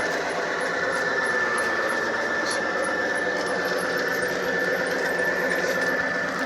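G-scale model train running on garden railroad track, its motor and gearing giving a steady high whine, with faint regular ticking.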